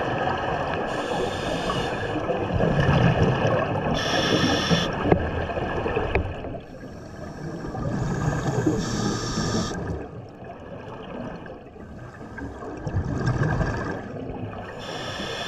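Scuba diver breathing through a regulator, heard underwater: a hiss of about a second alternates with low burbling of exhaled bubbles, repeating every few seconds.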